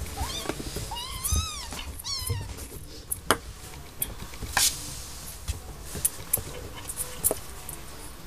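Kitten mewing: three short, high calls in the first two and a half seconds, the middle one rising and falling. Then a scatter of light taps and knocks as the kittens scramble and bat small balls about.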